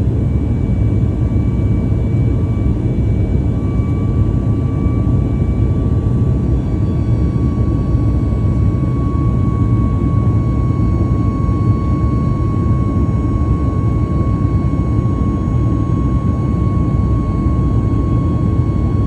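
Aircraft engines running at high power during the climb after takeoff, heard from aboard: a loud, even rumble with a steady whine on top that settles slightly lower about seven seconds in.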